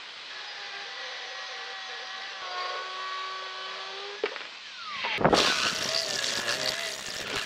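Angle grinder with a cutting disc cutting through a steel shock absorber rod: a steady high whine with hiss for about four seconds, then a falling tone as it winds down. About five seconds in, a step drill bit bites into a steel plate, louder and rougher, with the drill's motor tone wavering under the load.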